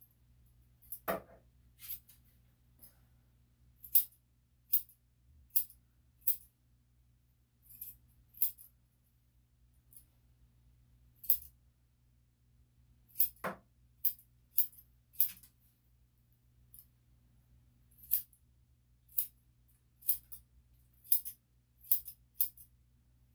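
Grooming scissors snipping through a Shih-Tzu's coat in short, irregular cuts, roughly one a second, with two fuller, louder snips, one about a second in and one near the middle.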